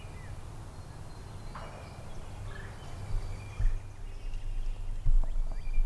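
Woodland ambience: birds chirping over a steady low rumble, with a couple of dull thumps.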